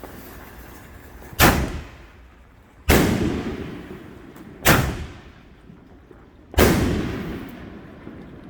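Consumer fireworks going off: four loud booms about one and a half to two seconds apart, each fading away over about a second.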